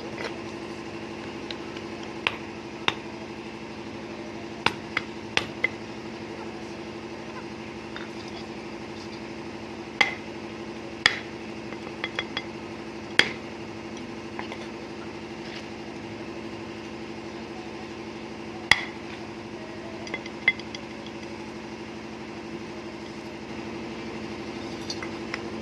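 Irregular sharp clinks and knocks, about a dozen, of a glass and bowl being handled and tapped while wet sand is packed into them as moulds, over a steady low hum.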